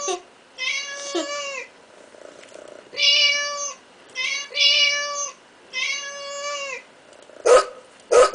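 Recorded cat meows played through the small speaker of a handheld children's speech-therapy toy: about four separate meows of roughly a second each, on a steady pitch. Near the end come two short dog barks.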